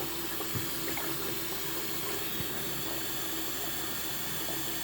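Hot water running steadily from a sink tap into a sink whose drain is clogged, with a couple of faint ticks.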